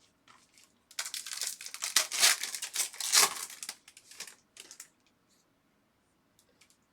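A foil trading-card pack wrapper being torn open and crinkled, a dense crackle lasting about three and a half seconds from about a second in, followed by a few faint ticks.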